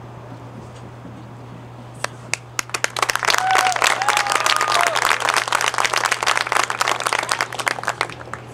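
Crowd applauding: a few scattered claps about two seconds in swell into full applause with some cheering shouts, stopping just before the end.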